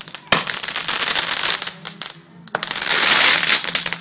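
Ground fireworks going off: a rapid crackle of firecracker pops with a sharp bang about a third of a second in, then another sharp bang about two and a half seconds in followed by a dense, hissing crackle.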